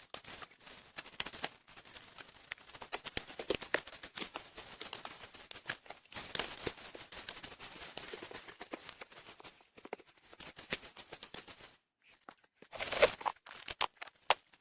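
Digging and scraping in stony soil: a string of irregular dry crunches, scrapes and small knocks as earth and stones are worked, with a louder cluster of scrapes near the end.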